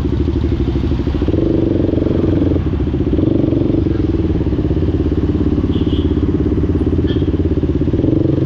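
KTM RC 200's single-cylinder engine running steadily while riding. The pitch rises about a second in, drops back shortly after, and lifts briefly again near the end.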